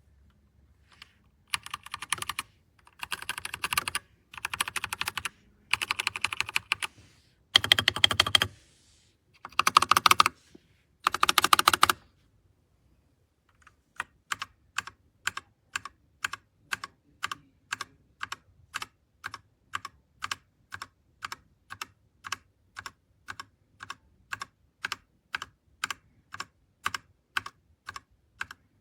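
Royal Kludge RK61 mechanical keyboard being typed on: several quick bursts of rapid keystrokes, then after a short pause about halfway through, single key presses at a steady pace of about two a second.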